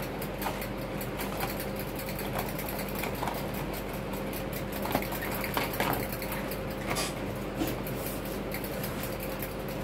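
Plastic marker pens clicking and clattering lightly against a wooden desk as they are sorted by hand: a few scattered sharp taps over a steady background hum.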